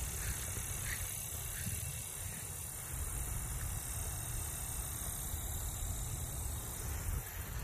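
Wind buffeting a phone microphone as a low, uneven rumble, with a steady high hiss above it.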